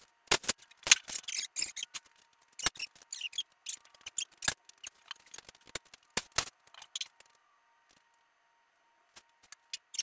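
Sharp, irregular metallic clicks and clanks of hand tools and parts as the flywheel is worked off the engine. They pause for a second or so near the end, then a few lighter clicks follow.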